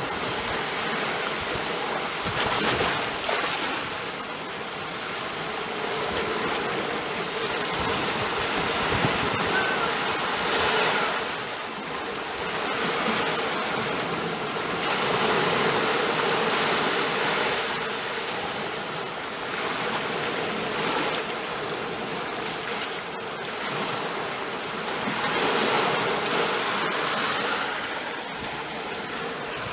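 Sea waves washing onto a shore, a steady rush of water that swells and eases every five or six seconds.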